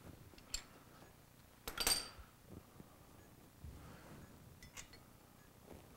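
Scattered light metallic clinks and clicks from hand tools and hardware being handled while a dirt bike's upper shock mount is refitted. The loudest is a short ringing clink about two seconds in, with fainter ticks before and after.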